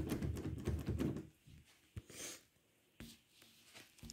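Handling noise from a phone being moved about: a dense rubbing rustle for about the first second, then a brief hiss and a few separate sharp clicks.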